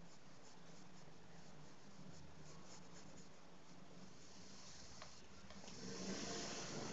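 Faint scratchy rubbing of a short-bristled paintbrush working textile paint into chiffon fabric, in a run of small quick strokes. About six seconds in, a louder steady hiss rises over it.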